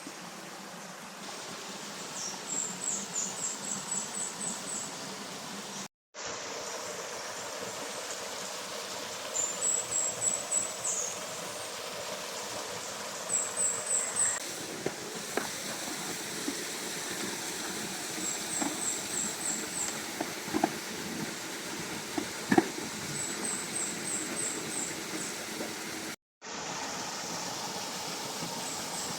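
Outdoor ambience: a steady background hiss, with a high chirping call repeated every few seconds in quick runs of several notes. A few sharp knocks come in the second half.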